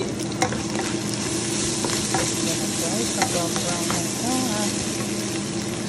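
Ground beef and onions sizzling in a nonstick frying pan while a wooden spatula stirs them, scraping and knocking against the pan a few times.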